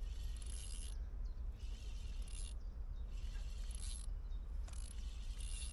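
Carp fishing reel buzzing in repeated bursts, each under a second long and about one and a half seconds apart, as a hooked carp is played in, over a low steady rumble.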